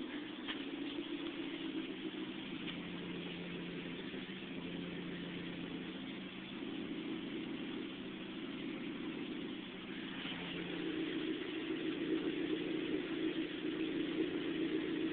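Supercharged 2.0-litre four-cylinder engine of a 2007 Chevrolet Cobalt SS idling steadily, a little louder from about ten seconds in.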